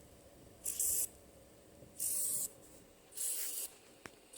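All-American pressure canner at about 6-7 pounds of pressure, letting out steam in short, evenly spaced hissing puffs, three in a row: the canner is still building toward its 10-pound operating pressure.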